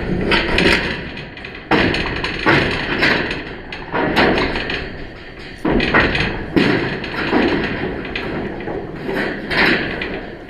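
A series of loud knocks and thuds close to the microphone, about eight in all, each hitting suddenly and fading over about a second. They come from the chain-link dugout fence the camera hangs on being gripped and knocked.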